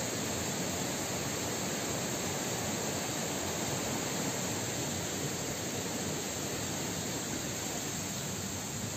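Steady rushing water noise, an even hiss with no separate drips, knocks or steps standing out.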